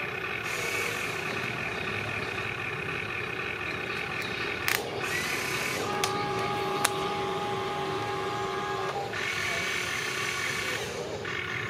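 Small electric motors of radio-controlled construction models whining steadily as several held tones, which shift pitch about five, six and nine seconds in. Three sharp clicks fall around the middle.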